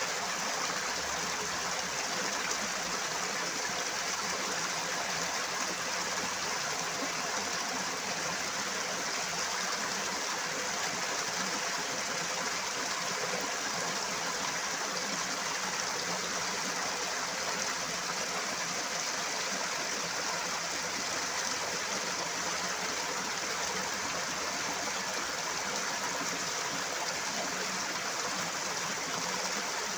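Flowing water running steadily, a constant rushing hiss that does not change.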